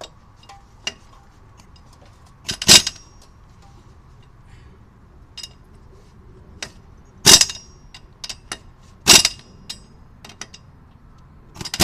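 Harbor Freight Earthquake XT air impact wrench fired in four short blips on a lug nut, each a sharp fraction-of-a-second rattle. Between them come small metallic clicks of the socket on the nut. The lug nuts are already tight and are only being turned a little more.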